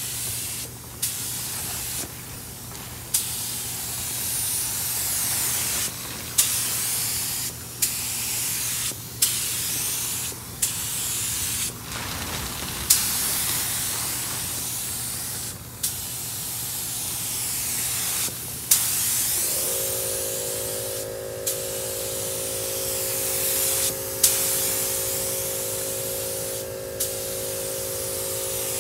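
Gravity-feed paint spray gun spraying: a loud air-and-paint hiss in passes of about one to one and a half seconds, each broken by a short gap and a click as the trigger is let go and pulled again. About two-thirds of the way in, a steady hum joins underneath.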